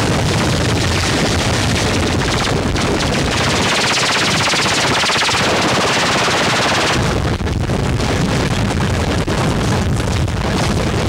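Harsh, heavily distorted noise-music collage: a loud, dense wall of rapid crackling with no break. Around four to seven seconds in the low end drops away and a bright hiss takes over.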